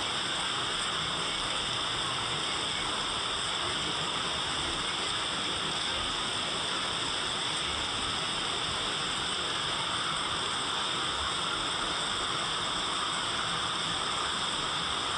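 Steady rain falling: an even, unbroken hiss with no single drops or thunder standing out.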